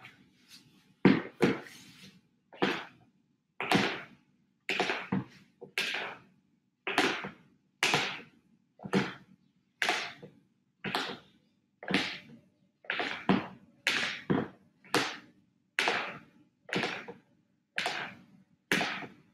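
Spoon folding oat flour into whipped egg whites in a plastic mixing bowl, each stroke scraping through the batter against the bowl. The strokes come in a steady rhythm, about one or two a second.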